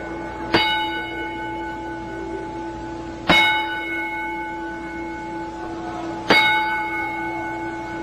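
Wrestling ring bell struck three times, about three seconds apart, each strike ringing on until the next: the start of the traditional ten-bell salute for the dead.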